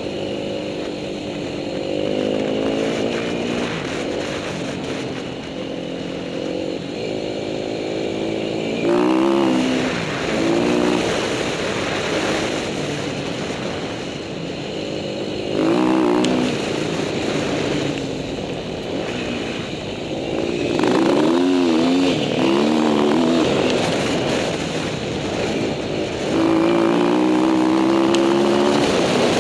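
Dirt bike engine being ridden, its pitch climbing and dropping back over and over as the throttle is opened and closed. It gets louder in hard bursts of throttle about a third of the way in, around the middle and near the end.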